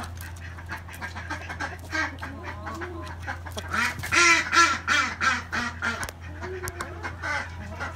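Hens clucking and calling as they come out through the coop's pop door, a string of short calls that is loudest a little past halfway.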